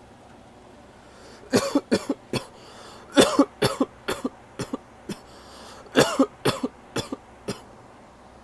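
A man coughing hard after inhaling a dab of concentrate vapour from a Puffco Peak e-rig: three bouts of quick coughs, starting about a second and a half in.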